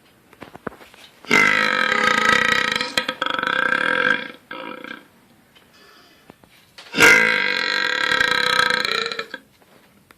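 A person burping: two long, drawn-out burps of about three and two and a half seconds, the first starting about a second in and the second about seven seconds in.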